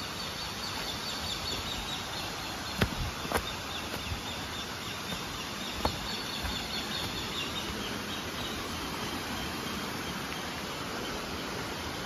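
Steady rush of flowing water from the stream and waterfall, with a faint high trill over it for the first half. A few sharp knocks, about three and three and a half seconds in and again near six seconds, from footsteps on the stony, leaf-covered path.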